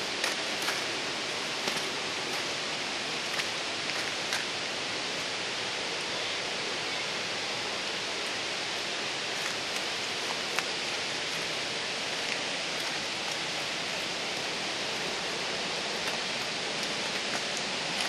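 Steady hiss of falling water, with a few faint ticks scattered through the first few seconds.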